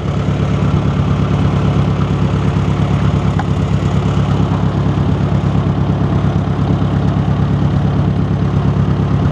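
1953 Ford NAA Jubilee tractor's four-cylinder overhead-valve gasoline engine running steadily.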